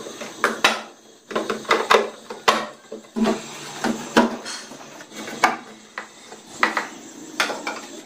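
Clear plastic refrigerator door shelves being slotted back onto the door: a string of irregular sharp plastic clicks and knocks.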